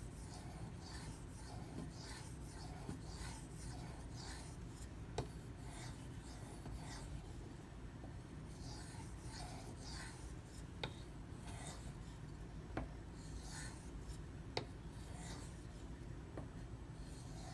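Steel knife blade stroked back and forth on the soaked 4000-grit side of a Bernal Cutlery Takarazukushi water stone: faint, repeated short scraping strokes, with a few light clicks.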